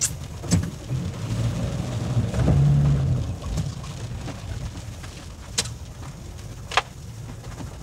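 A car driving, heard from inside the cabin: a steady low engine and road rumble that swells into a deeper drone about two and a half seconds in. A few sharp clicks sound over it, three of them spread across the stretch.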